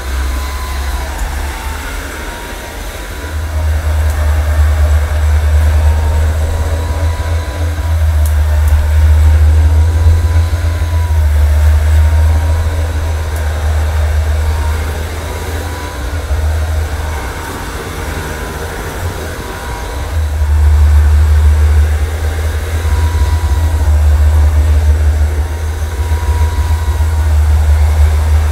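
AirCraft PowerGlide cordless hard floor cleaner running, its twin pads spinning against cushioned vinyl flooring: a steady low hum with a thin wavering whine above it. The hum swells and eases several times as the machine moves about.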